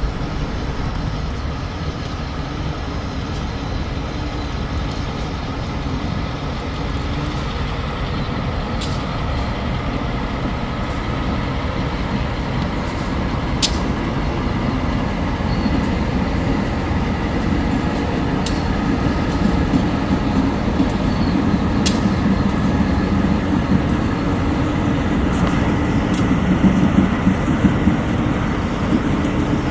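Train rolling past on the rails: a steady rumble of wheels on track that grows slowly louder, with a few scattered sharp clicks.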